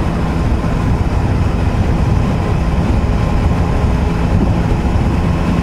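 Triumph Sprint ST1050's three-cylinder engine running steadily at motorway cruising speed, heard through a helmet camera over heavy wind and road noise.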